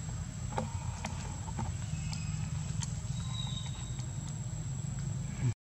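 Outdoor ambience: a steady low rumble with scattered small clicks and a thin, steady high-pitched whine. The sound cuts out abruptly for a moment near the end.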